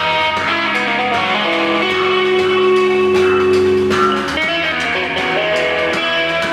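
Math-rock band playing live, an instrumental passage led by electric guitar with held, sustained notes.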